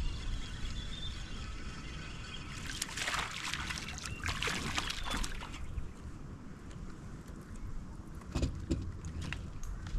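Water splashing at the surface just in front of the kayak for about three seconds, starting a few seconds in, over a steady low rumble of wind and water. A few sharp knocks follow near the end.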